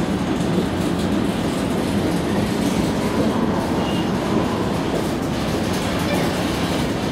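Freight train of covered hopper cars rolling past at slow speed: a steady noise of steel wheels on rail.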